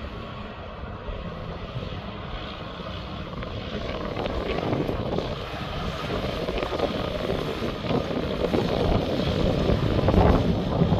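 Tractor-trailer truck running along the road, a steady engine rumble and road noise that grows louder as it approaches, loudest near the end.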